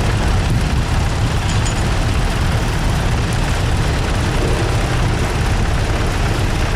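Vintage tractor engine running steadily with a constant low rumble.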